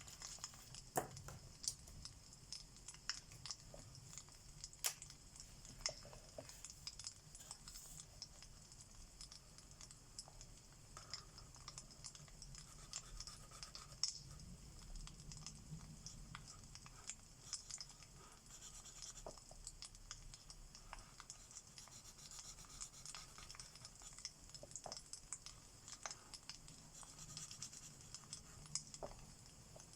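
Faint scratching of alcohol marker tips on paper, over a fireplace crackle track with scattered sharp pops and a low rumble.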